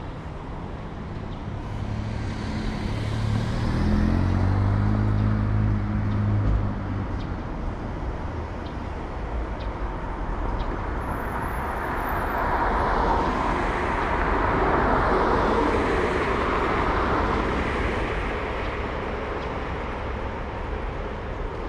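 Motor vehicles passing on a street. First an engine's low hum swells and fades over a few seconds, then a longer wash of tyre and road noise rises to a peak near the middle and dies away.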